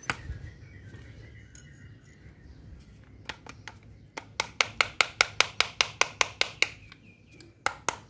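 Quick run of sharp clicking taps on the housing of an old Makita angle grinder as it is being taken apart. The taps come about five a second for a couple of seconds, with a few more near the end.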